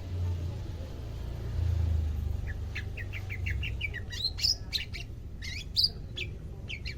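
A cucak ijo (leafbird) calling in a rapid series of short, sharp chirps that start a few seconds in and grow louder and busier, as the newly kept bird begins to call actively. A low rumble runs underneath.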